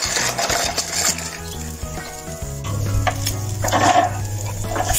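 Pork skewers sizzling and crackling over a charcoal barbecue grill, with scattered small clicks.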